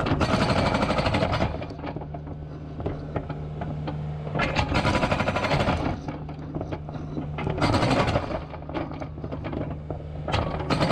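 Okada hydraulic breaker on a Kubota KX057 compact excavator hammering concrete in four bursts of rapid blows, with the excavator's diesel engine running steadily between bursts.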